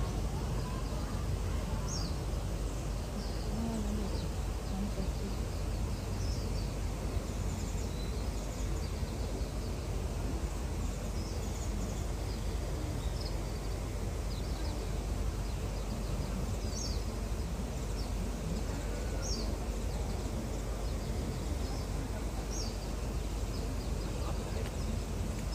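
Steady outdoor background noise, heaviest in the low end, with a few short, faint, high chirps scattered through it.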